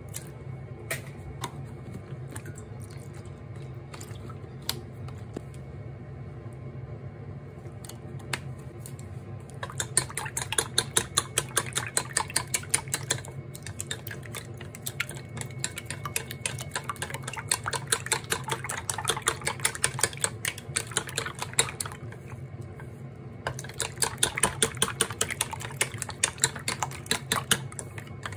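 Wooden chopsticks beating raw eggs in a small stainless steel saucepan: a fast run of clicking as the sticks strike the metal sides, starting about ten seconds in, with a brief pause about two-thirds through. Before that there are only a few scattered light taps as the eggs go into the pan. A steady low hum runs underneath.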